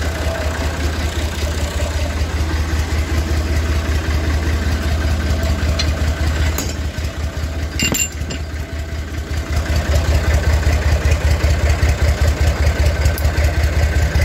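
Diesel tractor engine idling steadily with a low, even pulsing, getting a little louder about two-thirds of the way through. A few short metallic clicks come between about 6 and 8 s, as a pin is put into the sprayer's three-point hitch bracket.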